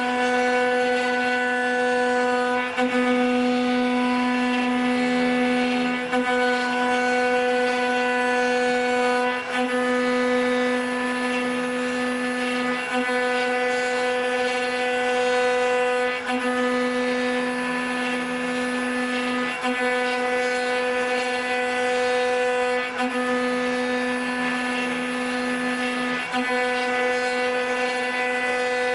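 Electric spindles of an eight-spindle four-axis CNC wood router running: a steady high whine with a ladder of overtones, which dips briefly about every three and a half seconds.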